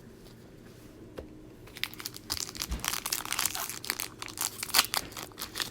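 Plastic trading-card packaging crinkling as it is handled, a dense run of crackles that starts after a short quiet spell.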